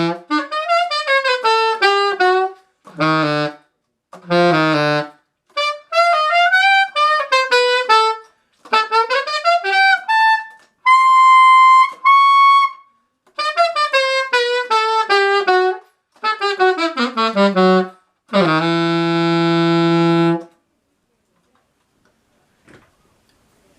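Unaccompanied alto saxophone, a 1979 Selmer Mark VI, playing funk improvisation lines: phrases of short, quick notes separated by brief pauses. A high note is held about eleven seconds in, and a long low note comes near the end.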